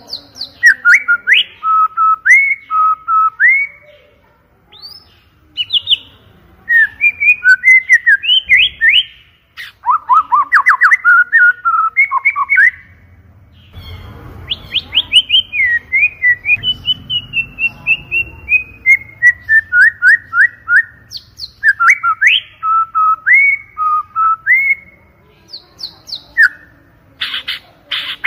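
White-rumped shama (murai batu) singing loud, clear whistled song: fast runs of rising and falling notes and rapid repeated trills, broken by a few short pauses.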